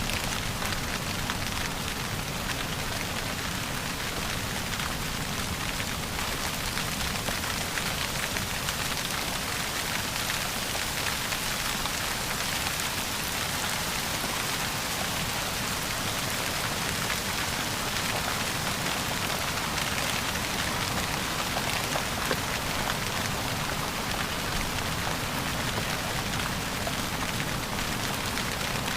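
Steady rain falling on a surface, a dense even hiss made of many fine drop patters.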